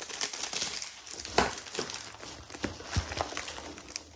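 Hands rummaging through foam packing peanuts in a cardboard box, rustling, as a plastic-bagged item is lifted out. A sharper knock comes about a second and a half in.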